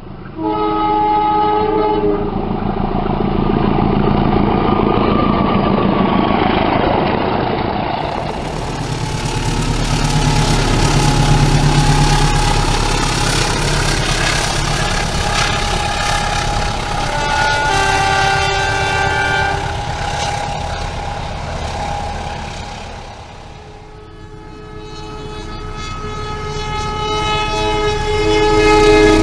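Diesel locomotive horns of passing trains, sounding several multi-tone blasts: a short one just after the start, another about two-thirds of the way through, and a longer one near the end that grows louder, over the steady rumble and rail clatter of the moving train.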